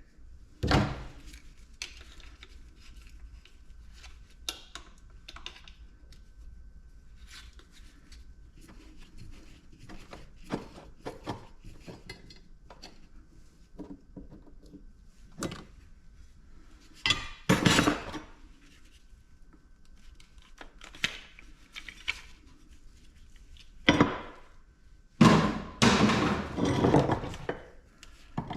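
Metal parts of a cut-open compressor clinking and knocking as they are handled, in irregular taps and thunks, with longer clattering, scraping stretches around two-thirds of the way in and near the end.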